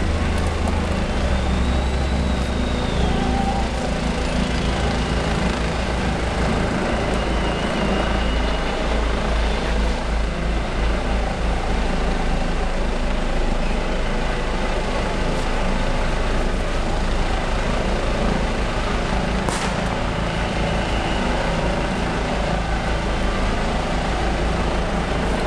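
A steady low engine drone with a fast pulsing beat over a broad din, and a single sharp crack about three quarters of the way through.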